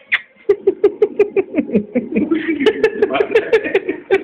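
A person laughing in quick, rhythmic bursts.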